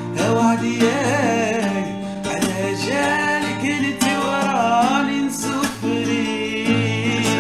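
A young man singing a song in Algerian Arabic with a wavering, ornamented melody, accompanying himself on an acoustic guitar.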